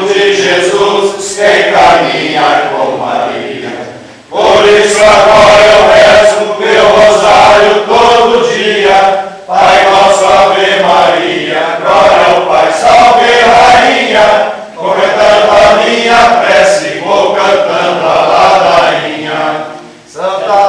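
A congregation chanting a sung Catholic litany (ladainha) together. The voices move in phrases of about five seconds, with short breaks for breath between them.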